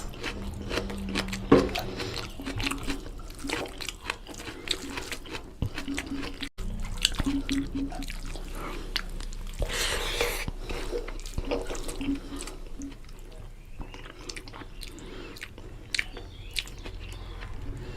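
Close-up eating of mutton curry with rice: wet chewing and lip-smacking clicks, with a wet slurp lasting about a second near the middle.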